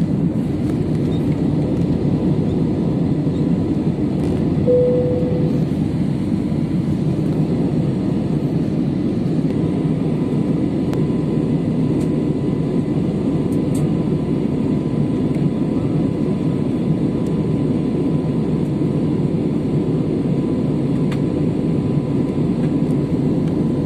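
Steady cabin noise of a jet airliner in flight: a constant low rumble of the engines and rushing air, with a short tone about five seconds in.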